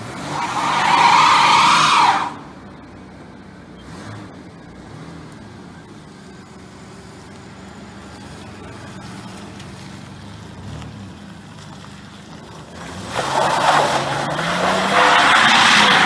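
Ford Ranger pickup's tyres squealing on asphalt as the truck is spun hard, for about two seconds at the start and again in the last three seconds, where the engine can be heard revving up. Between the two, the engine runs more quietly as the truck drives around.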